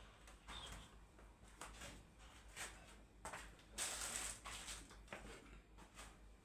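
A person eating close to the microphone: irregular, soft chewing and mouth noises, the loudest about four seconds in.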